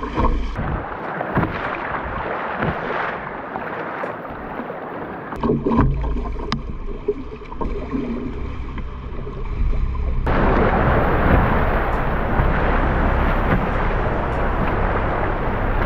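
Kayak paddling through fast river current, with water splashing along the hull and a few sharp paddle strokes. About ten seconds in, it switches suddenly to the louder, steady rush of whitewater as a kayak runs rapids.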